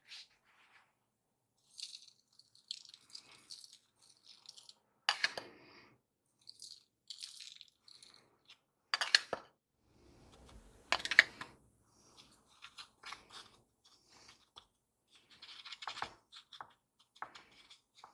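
Dry flour-and-sugar mix pouring and sliding off a glass bowl onto apple slices in a springform pan, a soft hissing rustle, broken by several sharp clinks and knocks, the loudest about a third of the way in and around the middle. Near the end a plastic spatula scrapes and pats the powder level.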